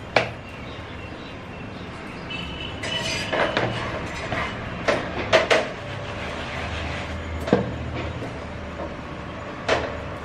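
Wooden rolling pin rolling roti dough on a round steel board, giving a low rumble, with about seven sharp knocks and clicks of kitchen utensils.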